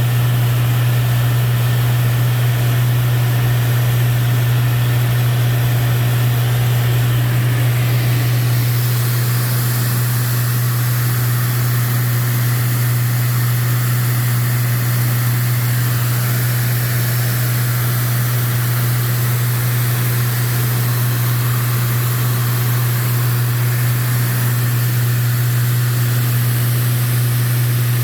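Cockpit noise of a Lancair IV-P in flight: the steady, loud drone of its engine and propeller, with airflow hiss over it that grows louder about eight seconds in.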